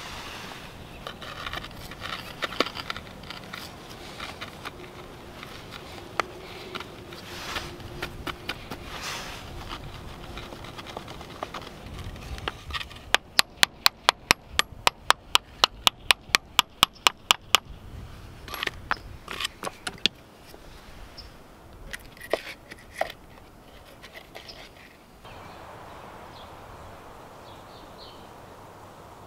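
Thin sandstone flagstone pieces clinking and scraping as they are handled, then a steel mason's hammer tapping quickly on stone over a wooden stump, about four strikes a second for some four seconds, trimming a flagstone to shape. Scattered single taps follow.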